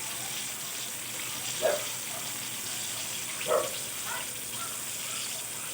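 Eggplant frying in hot oil in a pan: a steady sizzling hiss, with two short louder sounds about a second and a half and three and a half seconds in.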